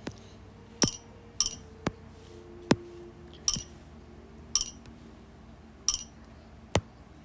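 A series of about nine sharp clicks and clinks at irregular intervals, several of them with a brief bright, glassy ring.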